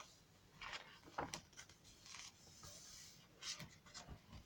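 Faint, short rustles and brushes of paper as the pages of a handmade glue book, layered with papers and fabric, are turned and handled.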